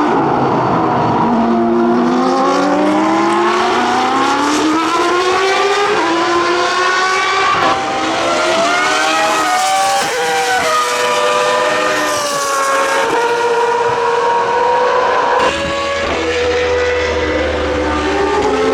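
Formula 1 V10 race car engines at full song, the pitch climbing steeply as they accelerate and dropping back at each upshift before climbing again. The sound changes abruptly about three-quarters of the way through.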